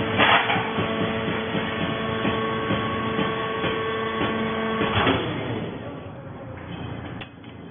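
Fibre baling machine running, a steady whine over clattering knocks. About five seconds in there is a louder clunk, then the whine stops and the noise falls away.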